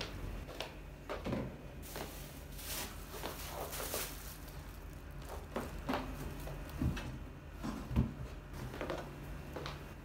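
Kitchen handling sounds: scattered knocks and clicks of utensils and objects being picked up and set down, with a stretch of rubbing noise about two to four seconds in, over a steady low hum.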